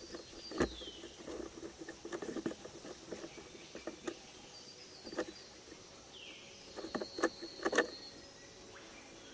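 Fingers scratching and pressing damp potting soil in a plastic dish: soft, scattered rustles and light clicks, with a quick run of louder crackles near the end.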